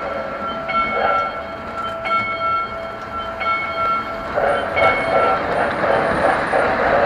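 Model train running on three-rail toy track, heard from a car of the moving train, with a ringing, bell-like tone from its sound unit repeating about every second and a half. The ringing stops about five seconds in, and the running noise of the train on the track grows louder just before.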